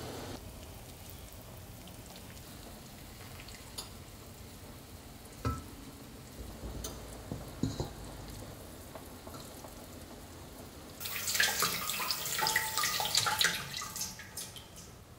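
A few light metal clinks of tongs against a stainless steel pot, then tap water running into a stainless steel bowl in the sink for about three seconds near the end.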